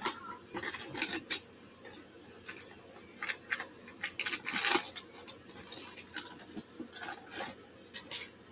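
Small hard objects being handled on a tabletop: scattered clicks, clinks and scrapes, with a longer scraping sound about four and a half seconds in.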